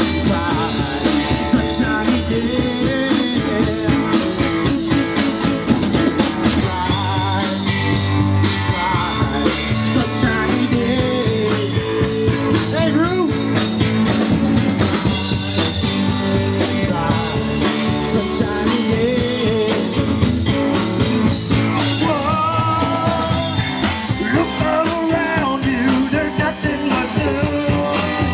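Live rock band playing: two electric guitars over a drum kit, with a steady beat and bending lead guitar lines.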